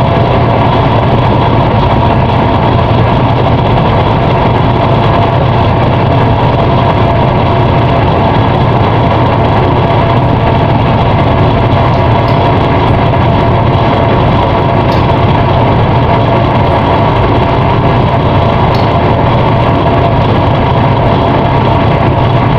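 Ship's diesel engine running under way: a loud, steady, deep drone with a faint whine above it, unchanging throughout.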